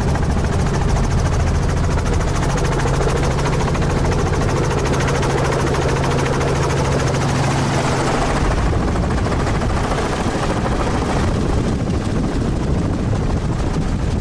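Helicopter in flight heard from inside its open-doored cabin: engine and rotor running steadily, a low hum under a fast, even beat of the blades. About eight seconds in the low hum fades and a more even rushing noise remains.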